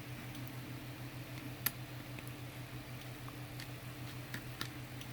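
Scattered small clicks and ticks of a precision screwdriver working the tiny screws out of a Joy-Con's back shell, one sharper click about a second and a half in, over a steady low hum.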